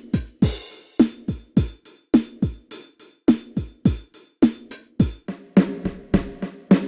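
Sampled drum pattern from a Ketron SD90 SF2 soundfont kit, a steady beat of deep kick-drum hits at about two a second that drop in pitch, with snare and hi-hat hits between them. About five seconds in, the pattern changes and a steadier pitched layer comes in under the hits.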